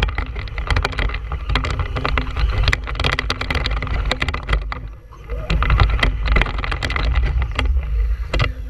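Traxxas Stampede 2WD RC monster truck driving, heard from the camera mounted above it: a low rumble with wind on the microphone and frequent rattles and knocks as it bounces along. About five seconds in the sound dips briefly, then a faint motor whine rises in pitch.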